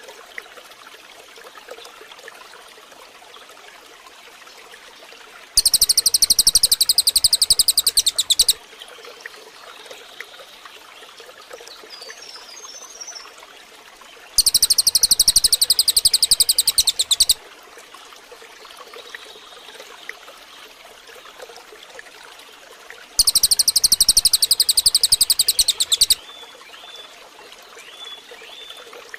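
Masteran birdsong recording for training captive songbirds: a loud, very high-pitched rapid song lasting about three seconds, repeated three times about nine seconds apart. Between the songs there is a steady trickling-water background with a few faint chirps.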